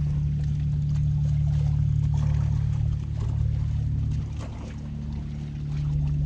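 Steady low engine drone that eases off briefly about four and a half seconds in, then returns.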